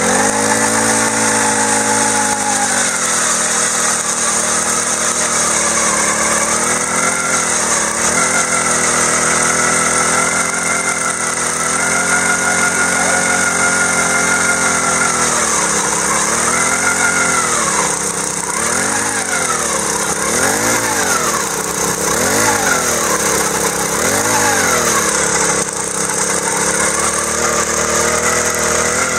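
Jiffy propane ice auger's small engine running. The note drops and settles over the first couple of seconds, then holds steady. From about halfway the pitch repeatedly dips and recovers, about every second and a half, as the auger bit bores down through the ice.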